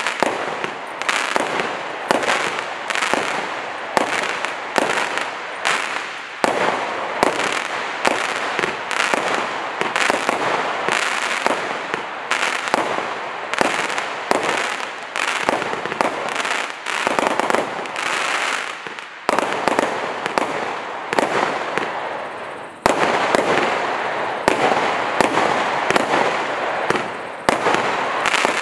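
Monkey Madness compound firework box (1.5 kg of powder, 216 shots) firing a rapid run of shots, about two a second, each a sharp bang, with crackling effects filling the gaps between them.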